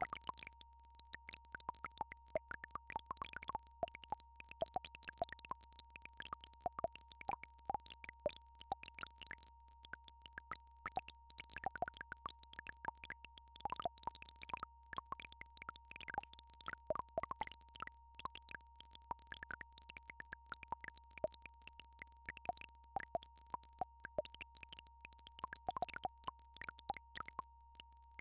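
A steady electronic sine tone held at one pitch, with a low drone under it, over a constant scatter of irregular soft plops and clicks like bubbling water.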